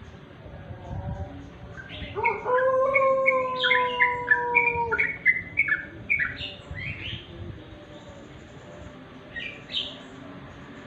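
Yellow-vented bulbul (trucuk) song: a burst of quick, bubbly chattering notes starting about two seconds in and lasting about five seconds. A long steady lower tone runs under the first half of the burst. A few more short notes come near the end.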